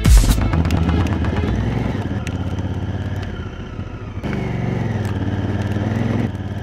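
Honda Africa Twin's parallel-twin engine running at low revs, dropping quieter about two seconds in and picking up again a little after four seconds.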